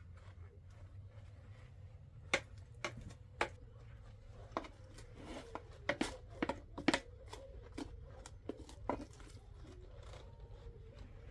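Irregular sharp clicks and knocks from handling during meal preparation, about a dozen of them, most packed between about two and nine seconds in, over a steady low rumble.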